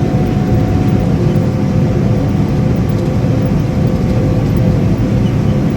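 Steady drone of a combine harvester working, heard from inside its cab: a continuous low rumble with a faint steady hum over it.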